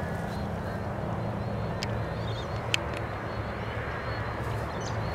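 Outdoor suburban ambience: a steady low engine hum, with faint bird chirps and two sharp clicks near the middle.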